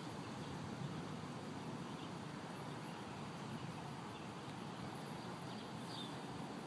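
Quiet outdoor background: a steady faint hiss with a few faint, brief high chirps scattered through it.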